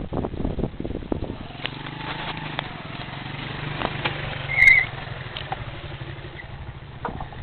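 A small engine running steadily, with rapid knocking clatter in the first second or so and a short, loud high chirp about four and a half seconds in.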